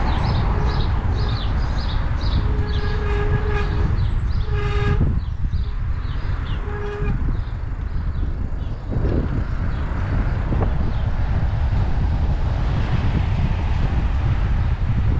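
Steady low rumble of wind buffeting the microphone. In the first half, a horn-like tone sounds several times over a quick run of high chirps.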